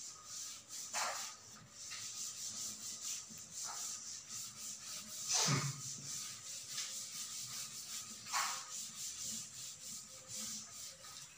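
Cloth duster wiping a chalkboard, rubbing off chalk writing in repeated scrubbing strokes, several a second, with a few longer sweeping wipes.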